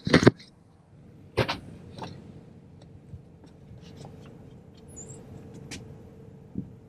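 Two sharp knocks, one right at the start and one about a second and a half in, then a faint steady hum with a few small scattered clicks.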